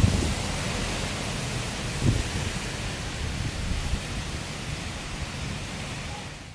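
Hurricane wind and rain rushing steadily, with wind buffeting the microphone in heavy gusts at the start and again about two seconds in.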